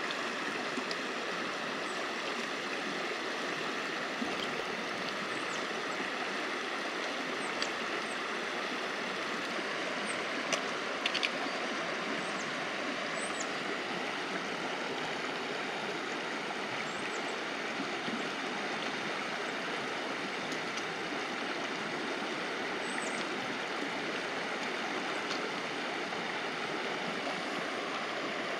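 A creek flowing steadily over rocks, with a few faint high chirps scattered over it and a couple of light clicks about ten seconds in.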